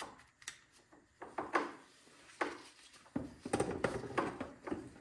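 Plastic recoil starter assembly of a Briggs & Stratton Q6500 inverter generator handled on the bench as its spring-loaded pulley winds the cord back in. A few separate light knocks and clicks come first, then a denser stretch of rattling clicks over the last two seconds.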